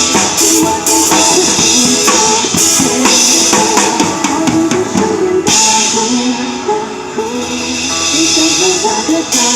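Drum kit played along to a song's backing track: steady beats and cymbals over a pitched melody, with the cymbals stopping briefly about halfway through before the groove picks up again.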